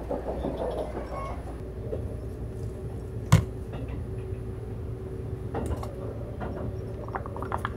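Electric train sound: a steady low rumble with a steady hum joining it early on, and one sharp knock a little under halfway through.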